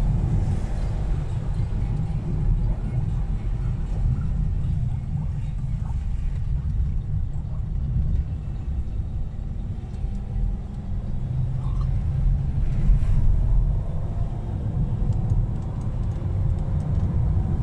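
Steady low rumble of a Toyota Vellfire 3.5 on the move, heard inside the cabin. The engine drone and tyre noise on the wet road blend into one even roar.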